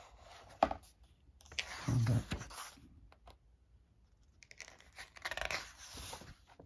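Book pages being turned by hand: thick paper pages rustling and sliding over one another in two spells, about a second and a half in and again past four seconds, with a light tap just before the first.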